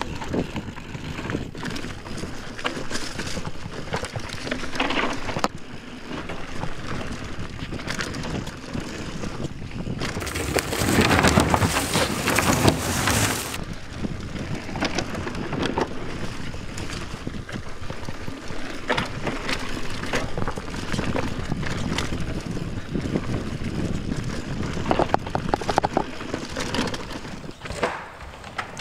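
Mountain bike ridden along a dirt forest trail: tyres on dirt and the bike clattering over bumps, with wind on the microphone. A louder rush of wind comes about ten seconds in and lasts about three seconds.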